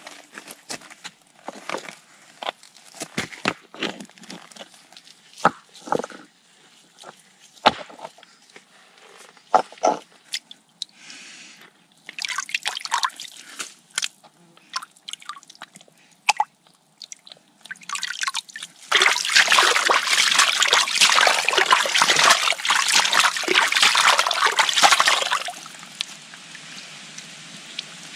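Hands working in a shallow, muddy spring pool, scooping out mud and stones: scattered splashes and knocks, then about six seconds of continuous heavy splashing and sloshing that drops to a softer, steady water sound near the end.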